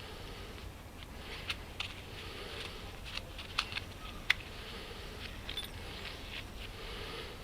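Light scraping and handling noise with a scatter of sharp clicks, the loudest about four seconds in.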